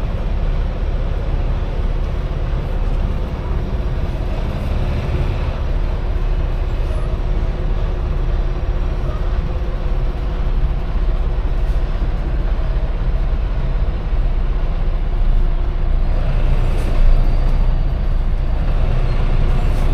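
Semi truck's diesel engine running steadily at low speed while the truck is maneuvered to park, a continuous low drone.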